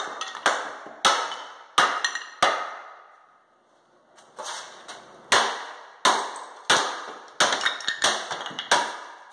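Claw hammer blows breaking up a bathroom sink counter and its fittings, each a sharp crack with a short ring. There are about five quick blows, a pause of nearly two seconds, then about seven more.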